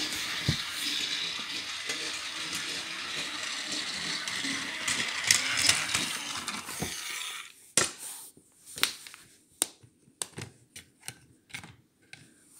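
Toy train running over plastic track, a steady mechanical whirr of its motor and wheels that stops about seven and a half seconds in. After it, a run of sharp plastic clicks and knocks as the toy crossing pieces are handled.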